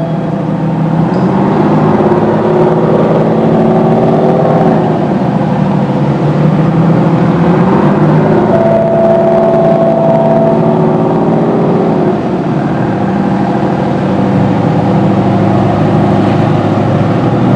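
Crew boat's Detroit Diesel engines running, revving up and easing back twice as the boat holds its bow against the platform. A steady high horn-like tone sounds for about two seconds near the middle.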